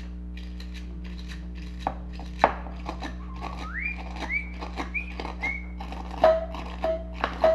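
Wire brush scrubbing corrosion off a toy's battery contacts: irregular scratchy strokes and sharp clicks starting about two seconds in, with a few short rising whistle-like squeaks in the middle and brief squeaky tones near the end, over a steady low hum.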